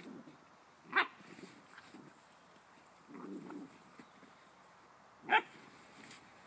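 Spinone Italiano puppies at play: two short, sharp yips, about a second in and again about five seconds in, with soft low growling between.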